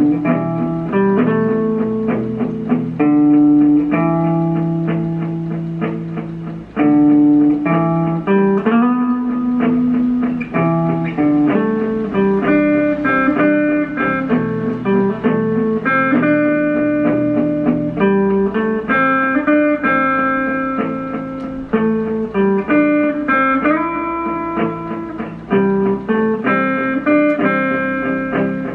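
Electric guitar playing a continuous melodic line of picked single notes, some short and quick, others held and left ringing.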